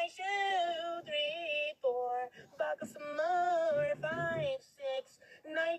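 A high voice singing a short tune in long held notes, with brief breaks between phrases.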